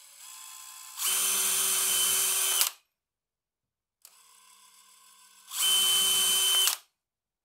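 DeWalt 20V XR cordless drill running at full speed twice, drilling two pilot holes into a birch plywood pad with a small twist bit. Each run is a steady whine, the first about a second and a half long and the second about a second, starting and stopping sharply.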